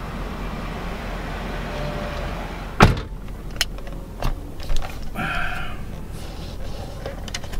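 Car cabin noise as the car rolls slowly into a parking space, cut by a sharp loud click about three seconds in. After it the cabin is quieter, with a few lighter clicks and knocks and a brief higher-pitched sound in the middle.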